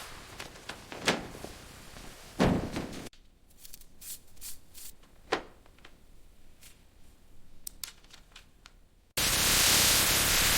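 Scattered clunks and clicks of hands-on work, with one heavy thunk about two and a half seconds in, then fainter sparse ticks. Near the end a loud steady rushing noise starts suddenly.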